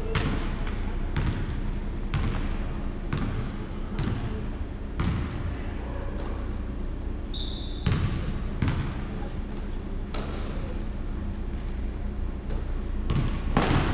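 A basketball bouncing on a hardwood gym floor during play, in irregular dribbles roughly once a second. There is one brief high squeak a little past halfway.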